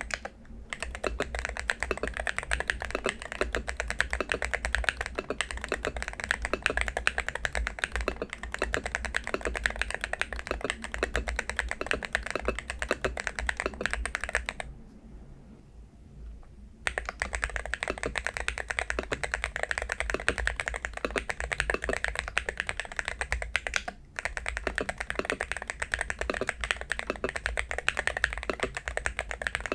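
Continuous fast typing on an AULA Hero68HE Hall-effect magnetic-switch keyboard fitted with silver switches: a dense clatter of keystrokes, stopping for about two seconds midway before resuming.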